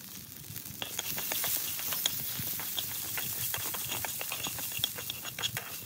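Insects and chopped green onion sizzling in hot oil in a frying pan, with chopsticks stirring and clicking against the pan from about a second in.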